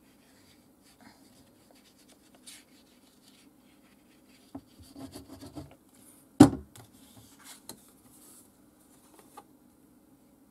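Hands working paper and a glue pot: soft rubbing and rustles of card as adhesive is applied, with one sharp knock a little past halfway and a few lighter taps after it, over a faint steady hum.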